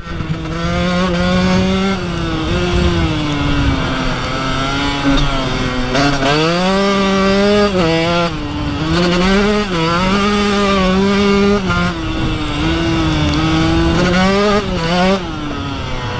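KTM SX 125's single-cylinder two-stroke engine running hard as the dirt bike is ridden, its pitch rising and falling repeatedly with the throttle, with several brief dips.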